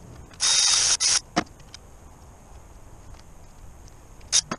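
A hand-held power tool running in two short bursts, the first about half a second long and the second briefer, then a few sharp metal clicks near the end. This is the sound of the bolts coming off a Cat 3116 diesel's valve cover.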